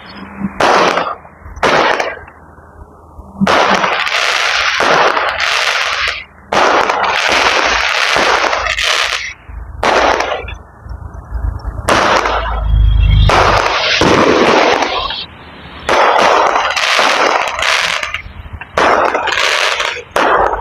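Fireworks going off in a long run of loud bursts, one after another, with a deep boom about thirteen seconds in.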